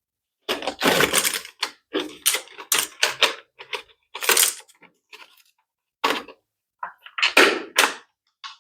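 Toys being clicked and tapped in short, irregular bursts of sharp clicks, with dead silence between the bursts.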